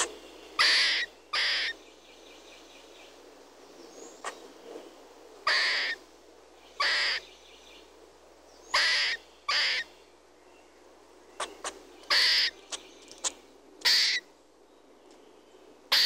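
Short, harsh, raspy animal calls, mostly in pairs, each under half a second, repeating every few seconds.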